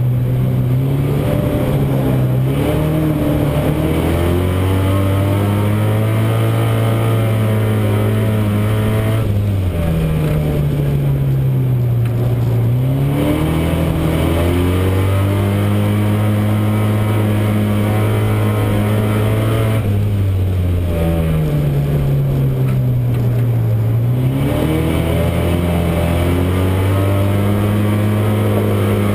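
Euro Rod race car's engine heard from inside the car, running hard at high revs. Twice, about ten seconds apart, the revs fall away and then climb back up.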